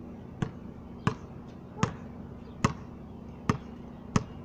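A basketball bouncing on a concrete court: six sharp bounces at an even pace, under a second apart.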